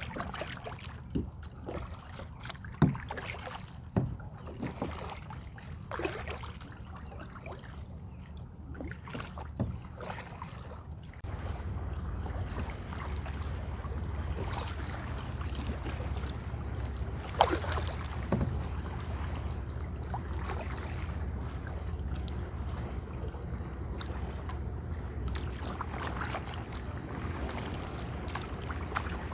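Kayak paddle strokes with water splashing and dripping. About eleven seconds in, a steady low rumble of wind on the microphone suddenly sets in under the paddling.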